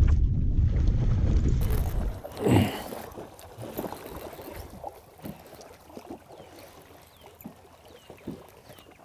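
Wind buffeting the microphone, then a hooked bass splashing hard at the surface about two and a half seconds in, followed by smaller splashes and water sloshing as the fish is fought.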